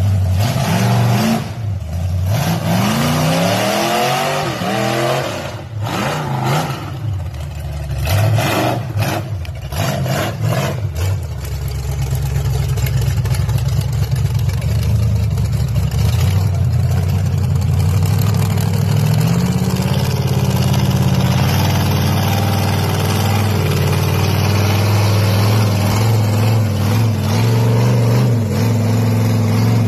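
Off-road 4x4 vehicle engine revving hard, its pitch rising and falling, with several knocks and bangs in the first ten seconds or so; it then runs on more steadily with small changes in pitch.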